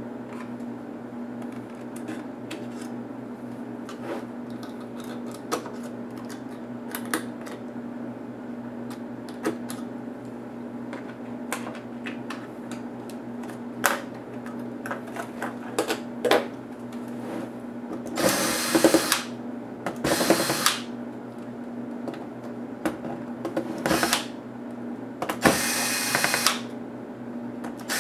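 A cordless electric screwdriver runs in several short bursts, about a second each, from about two-thirds of the way in, backing out screws from a laptop's plastic bottom case. Before that, light clicks and taps of hand tools and small parts being lifted out, over a steady low hum.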